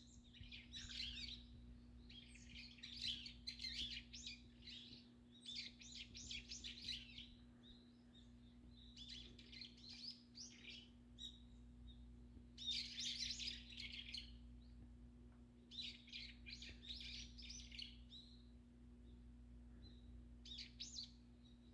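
Small songbirds twittering in quick bursts of high, rapid chirps, about eight bursts each lasting a second or so, over a faint steady low hum.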